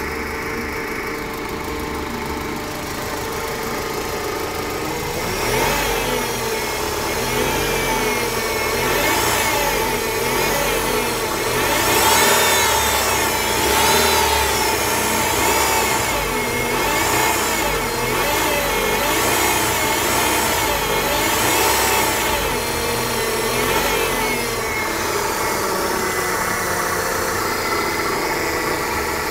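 Kia Sephia engine running at idle with a power steering noise over it: a whine that wavers up and down over and over from about five seconds in, easing off near the end. The noise persists even after the power steering reservoir and hydraulic pump were cleaned.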